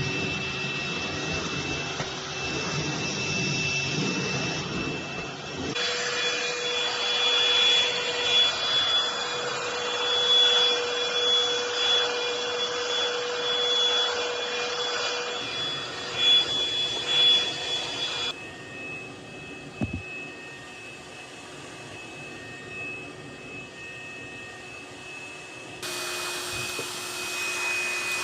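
Cordless stick vacuum (MOOSOO M XL-618A) running: a steady motor whine over an airy rush. Its pitch and loudness change abruptly a few times, and it is quieter for a stretch in the second half.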